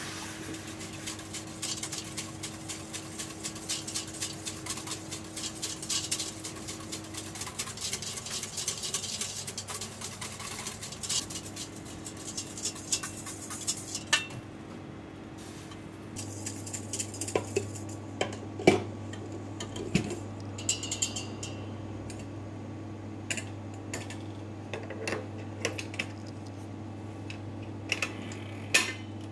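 Wire balloon whisk beating eggs and sugar in a stainless steel bowl over a hot water bath, the wires clinking rapidly against the metal. About halfway through the clinking thins out into scattered, sharper metal knocks. A steady low hum runs underneath.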